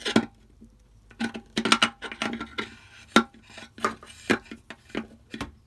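Starlink power cord plug being pushed through a hole in the wall, knocking and scraping against the stainless steel cover plate and the hole's edge: a run of sharp clattering knocks and clicks.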